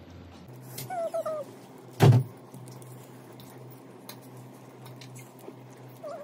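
Table-top handling of plates and a pizza box: one loud thump about two seconds in, with scattered light clicks and a steady low hum. A brief high wavering cry comes about a second in.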